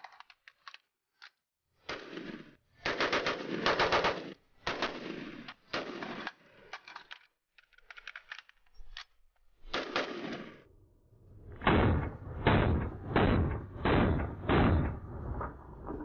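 Gunfire from a PSA 10.5-inch AR-15 pistol: several strings of quick shots with short gaps between them, the strongest run of strings in the last few seconds. A few light clicks fall between the strings.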